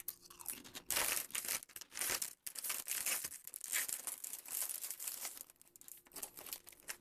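Potato chips being crunched and chewed, an irregular run of crisp crackling crunches starting about a second in and going on with short pauses for several seconds.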